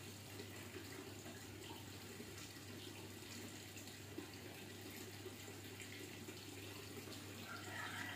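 Faint steady background hiss with a low hum, and a few faint soft knocks and rubs from a full-face motorcycle helmet being pulled on and its D-ring chin strap worked.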